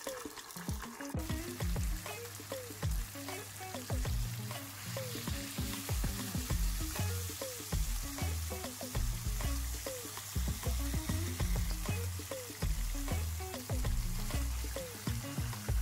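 Fish pieces shallow-frying in bubbling hot oil in a pan: a steady sizzle with many small crackles. Background music with a deep bass line plays underneath.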